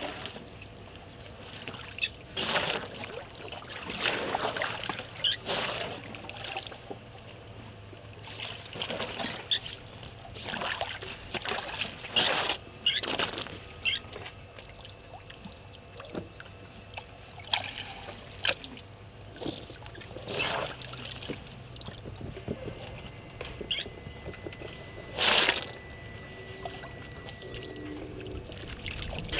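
African elephants drinking at a waterhole: irregular splashes and pours of water as their trunks draw up water and empty it into their mouths, one every second or so.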